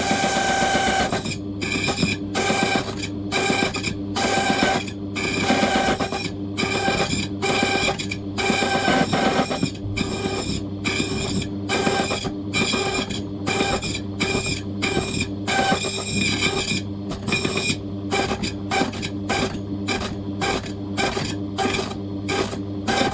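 Key-cutting machine running with its motor humming steadily while the cutter mills a lever safe key blank, the cutting noise breaking off and restarting every second or so as the blank is worked along the cutter.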